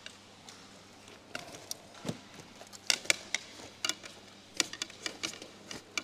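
Scattered sharp clicks and small taps as a freshly landed carp is handled and unhooked at the landing net and keepnet beside the water.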